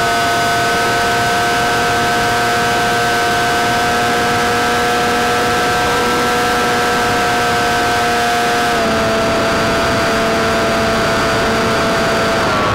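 Electric motor and propeller of an FPV forward-swept-wing RC plane running at steady throttle, heard from on board: a steady whine over a loud rush of air. The pitch drops a little about nine seconds in and again near the end as the throttle is eased back.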